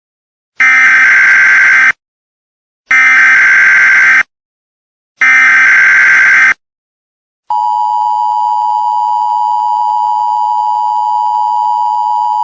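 Emergency Alert System tones: three loud bursts of SAME header data, each about a second and a half long with short gaps between them, then the steady two-tone EAS attention signal, which starts about 7 seconds in and holds.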